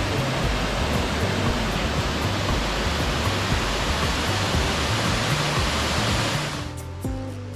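Steady rushing of a waterfall, a loud even hiss of falling water, with background music faintly under it. About six and a half seconds in the water sound fades out quickly, leaving the music with its held notes.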